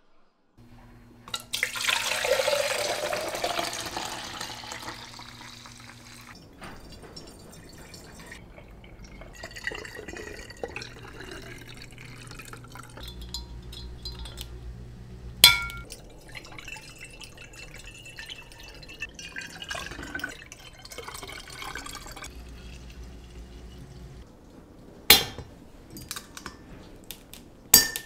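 Dark soy-sauce mixture poured into a glass bottle for about five seconds near the start, followed by quieter glass handling. A swing-top bottle's wire clasp clicks shut sharply about halfway through, and twice more near the end.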